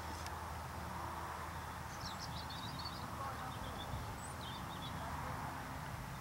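Open-field ambience: a steady rush of background noise with a low rumble, like wind on the microphone. A small bird twitters briefly about two seconds in, and again around three and a half to four seconds.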